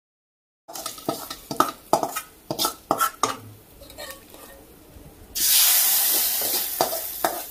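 A metal spoon scraping and clinking against a metal pan and pot during stirring, then about five seconds in a loud sizzle as the hot coconut-oil tempering of mustard seeds, shallots and curry leaves hits the curry.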